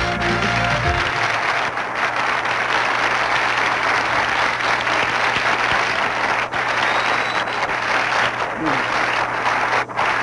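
Studio audience applauding, a steady clapping from many hands. A short music jingle ends about a second in.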